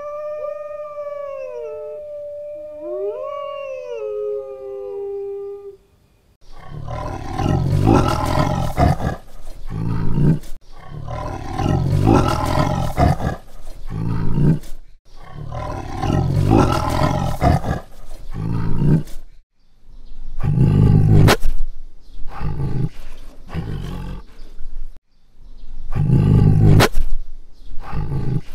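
A wolf howling twice, long pitched calls rising and then held or falling, for about six seconds. After a short break, a tiger roars and growls repeatedly, rough deep calls separated by short pauses, the loudest ones about two-thirds of the way through and near the end.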